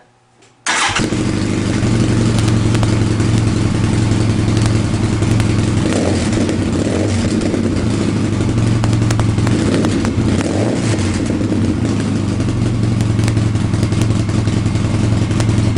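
Polaris RZR 800 side-by-side's twin-cylinder engine breathing through a DMC Afterburner dual exhaust, catching suddenly under a second in and then running loud and steady.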